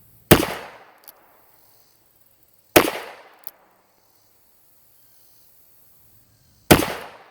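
Three shots from a 2-inch-barrel Ruger Speed Six revolver fired single action, spaced a few seconds apart, the last gap longer. Each loud crack rings off, and a faint sharp tick follows it a moment later.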